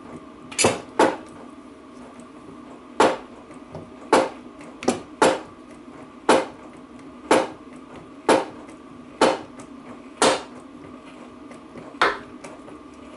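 Sharp metallic clicks about once a second, a dozen in all, as a 10-ton hydraulic ram is pumped by hand to press a new bearing onto a rear differential carrier.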